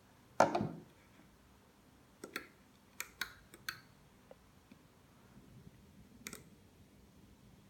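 Sharp clicks of switch buttons being pressed: one louder click about half a second in, a quick cluster of four or five between about two and four seconds, and one more near the end.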